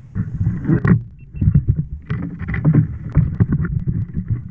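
Irregular knocks and thumps on a fishing kayak with water splashing against the hull, some strikes louder than others.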